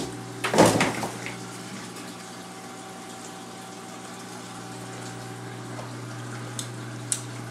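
Running saltwater aquarium: the pump and overflow keep up a steady low electrical hum with water trickling. A short loud knock comes about half a second in, and two small clicks come near the end.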